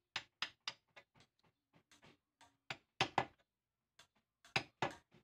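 Claw hammer striking a wood chisel as it chops a hole into a wooden door-frame timber: about twenty sharp knocks in quick runs of roughly four a second, the hardest blows about three seconds in and near the end.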